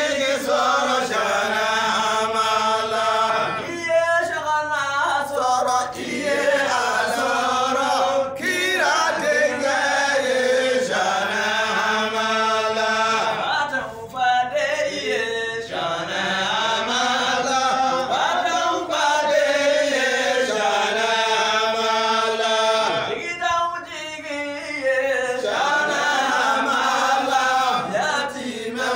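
Devotional chanting: sung voices holding long, melodic phrases with short pauses between them.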